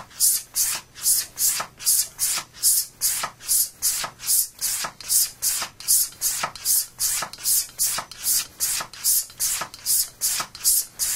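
Straight razor stropped on a hanging leather strop: quick, even swishing passes of the blade along the leather, about two to three a second. This is the plain-leather stropping that finishes a refresh of the razor's edge.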